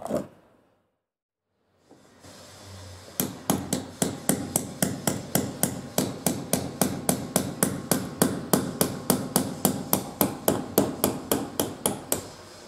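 Metal tapping on an aircraft door's hinge pin as it is worked out with long-nose pliers: an even run of sharp taps, about three to four a second, starting about three seconds in and stopping shortly before the end.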